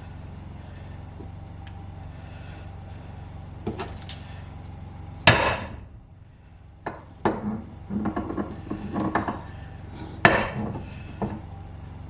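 Two sharp knocks about five seconds apart, with clattering of tools and hardware between them, over a steady low hum.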